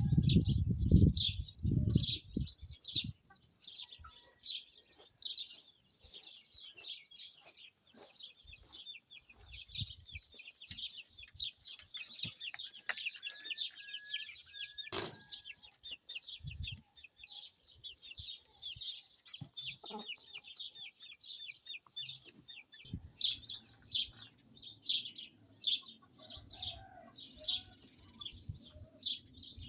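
A chorus of small birds chirping rapidly and continuously, with low gusts of wind rumbling on the microphone at the start and again in the last several seconds. One sharp click about halfway through.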